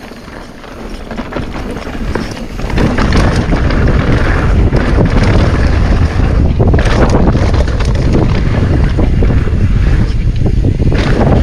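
Wind buffeting the microphone of a camera on a mountain bike descending a dirt trail, mixed with tyre noise and the clatter and rattle of the bike over rough ground. It builds over the first few seconds as the bike picks up speed, then holds at a steady loud rush.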